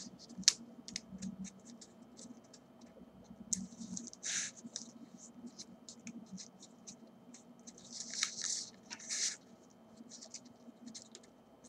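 Paper rustling and crinkling, with many small ticks, as a vinyl decal sheet on its backing and transfer paper is rolled around a pencil and pressed into a curve by hand. Two louder bursts of rustling come about four seconds in and again about eight to nine seconds in.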